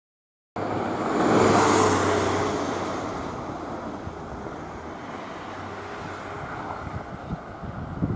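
A road vehicle passing by, swelling to its loudest about a second in and then slowly fading, with wind gusting on the microphone near the end.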